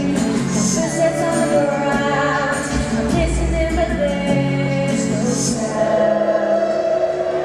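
A young female singer singing a pop ballad live over a backing track through a PA system, holding a long note near the end.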